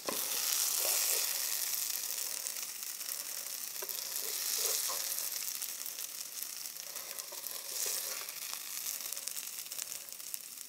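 Beef fajita filling of meat, onion and peppers sizzling in a frying pan as it is lifted out with metal tongs, with a few light clicks of the tongs against the pan. The hob under the pan is switched off, so the sizzle comes from the pan's remaining heat, easing slightly toward the end.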